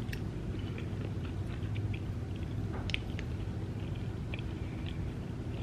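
Chewing a mouthful of creamy lobster mac and cheese with lips closed: soft, scattered wet mouth clicks, over a steady low hum.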